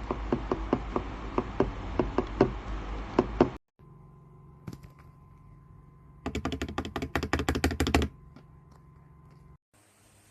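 Keys clacking on a computer keyboard fitted with cartoon cat keycaps: steady keystrokes about four a second over a low hum, cut off suddenly, then after a quiet stretch a quick run of typing lasting about two seconds.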